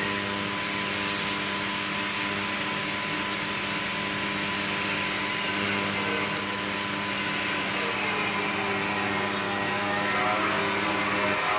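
TIG welding arc buzzing and hissing steadily while filler rod is fed into the weld, stopping abruptly shortly before the end.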